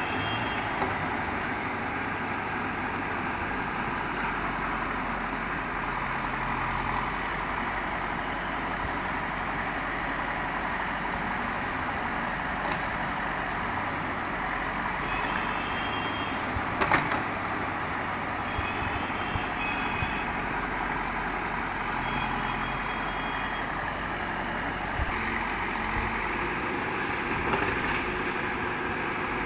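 Terex TLB 740S backhoe loader's diesel engine running steadily under load while it digs and loads soil. Short reversing beeps sound in a few groups, and there is a single sharp knock a little past halfway.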